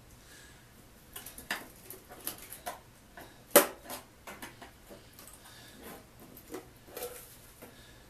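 Lid of a metal paint can being pried off with a screwdriver: scattered metallic clicks and scrapes around the rim, the loudest a single sharp click about three and a half seconds in.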